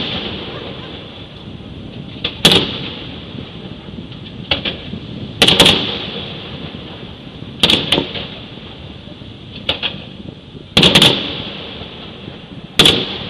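Aerial firework shells bursting, a loud bang about every two seconds with a few smaller pops in between, each bang echoing away.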